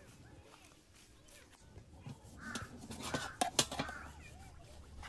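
Birds calling a few times near the middle, mixed with a few sharp clicks and clinks.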